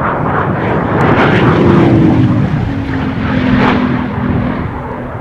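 A supercar passing at speed: its engine and exhaust grow louder to a peak about two seconds in, then the pitch drops as it goes by and the sound fades away.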